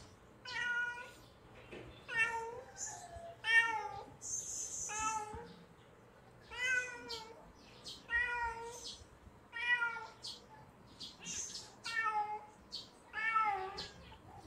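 Kitten meowing over and over, about ten short calls that rise and fall in pitch, one every second or so. These are the calls of a hungry kitten.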